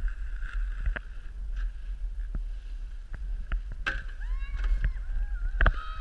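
Wind rumbling over a moving action camera's microphone on a ski slope, with scattered sharp clicks and scrapes. In the last couple of seconds a person calls out in rising and falling tones.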